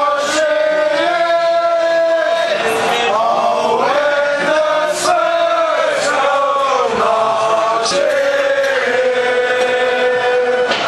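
Crowd of football supporters singing a chant together, men's voices in unison, ending on a long held note.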